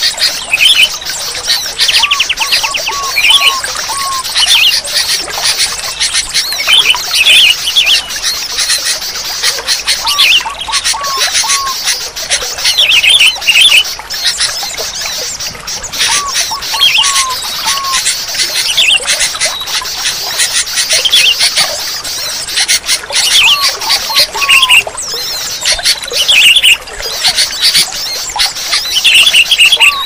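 Sooty-headed bulbuls (kutilang) calling. A phrase of four or five clear notes repeats every six or seven seconds over constant, busy higher twittering.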